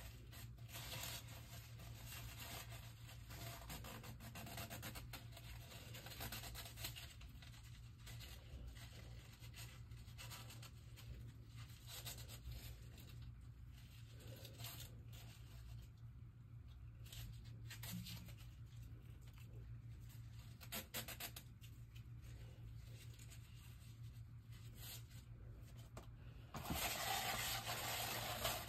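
Faint handling noises: scratching, rubbing and light clicks, over a steady low hum. A louder stretch of rustling comes near the end.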